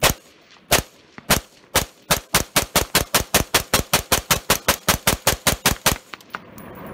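Smith & Wesson M&P15 AR-15 rifle fired semi-automatically, one-handed: a few spaced shots, then a rapid string of about five shots a second that stops about six seconds in.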